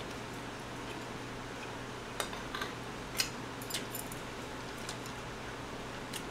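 Chopsticks and a spoon clinking against ceramic bowls and dishes while eating: a handful of light, separate clicks starting about two seconds in, over a low steady hum.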